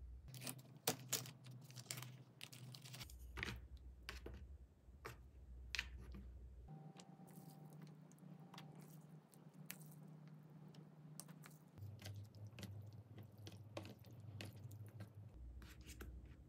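Faint crinkling and scattered sharp clicks of a thin plastic meal-kit tray and its film lid being handled and peeled open.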